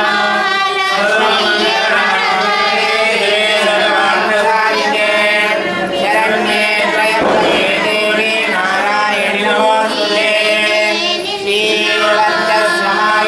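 Several voices chanting devotional mantras together in a steady, continuous recitation.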